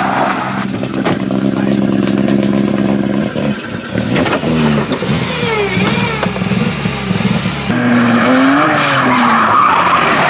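Mitsubishi Lancer Evolution rally car's turbocharged four-cylinder engine held at steady high revs as it spins its tyres, then revving up and down. About three-quarters of the way through, a cut brings in a second small rally car's engine revving as it slides on gravel.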